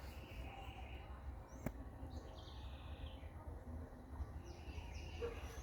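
Faint high bird chirps over a steady low rumble, with one sharp tap about a second and a half in.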